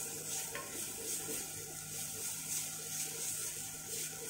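Minced garlic sizzling in olive oil in a nonstick wok, with a silicone spatula stirring and scraping it around the pan in repeated strokes.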